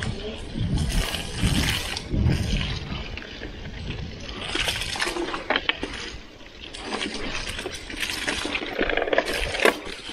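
Mountain bike tyres rolling through wet mud on a dirt trail, squelching and splashing in irregular bursts, with low thuds in the first few seconds. The bike's chain is clogged with mud and starting to jam.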